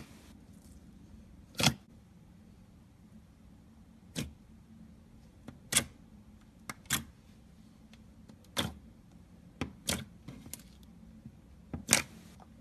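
Slime being squeezed and poked by hand, giving sharp clicking pops at irregular intervals, roughly one every second or two.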